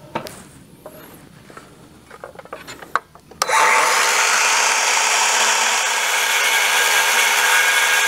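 A few light handling clicks and knocks, then about three and a half seconds in a DeWalt circular saw starts abruptly and runs steadily at full speed, cutting along a timber rafter.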